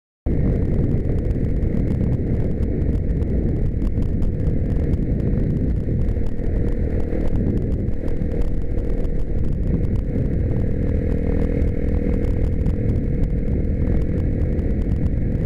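Blata 125 enduro motorcycle running at a steady pace on the road, with heavy wind buffeting on the onboard microphone. It starts abruptly and fades out near the end.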